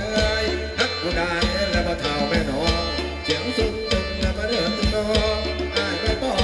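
Thai ramwong dance music from a band: a steady drum beat with a sustained bass and a melody line over it.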